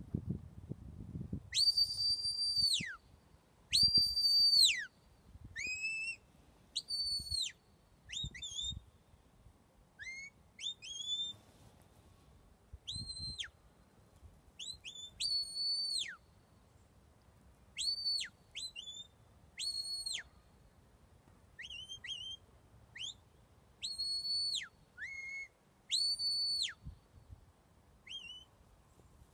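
A shepherd whistling herding commands to a working sheepdog as it gathers a flock. The commands come as a run of high whistle blasts with gaps between: some long held notes that drop away at the end, others short rising or falling chirps.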